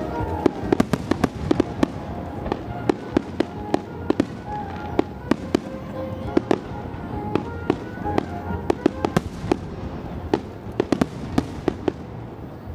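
Aerial fireworks shells bursting in a rapid barrage: a steady string of sharp bangs, several a second, some louder than others.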